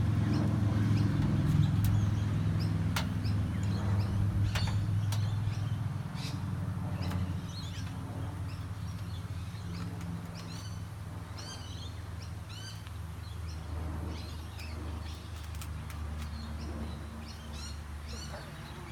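Small birds chirping and calling in quick, repeated downward-sweeping notes over a steady low machine hum that fades after the first few seconds.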